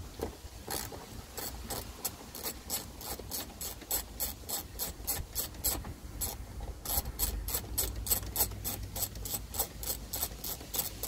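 Hand socket ratchet clicking as it turns a headlamp mounting bolt, in an even run of about three clicks a second with a short pause near the middle.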